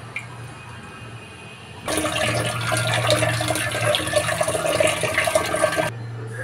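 Kitchen tap running into a stainless steel sink and a steel bowl as raw prawns are rinsed by hand, water splashing. The splashing starts about two seconds in and cuts off suddenly near the end, over a low steady hum.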